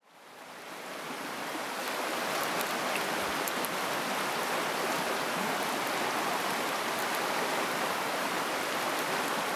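Shallow stream rushing over rapids, a steady rushing of water that fades in over the first couple of seconds.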